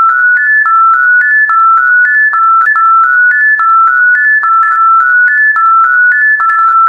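A simple electronic melody of clean, high-pitched beeping tones, a three-note rising figure repeated over and over at about one figure a second, each note starting with a small click.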